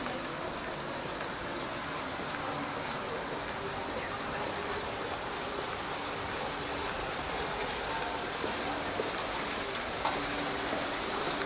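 Steady rush of running water, with faint voices of passers-by underneath.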